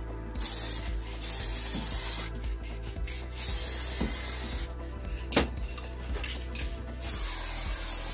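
Aerosol spray paint can hissing in four or five bursts of a second or two each, with short pauses between passes, as a coat of paint goes on. Background music runs underneath.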